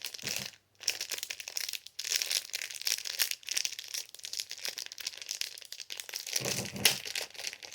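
Plastic packaging crinkling and crackling as it is handled and opened to get out a fidget toy. There is a louder burst of crackling about a second before the end.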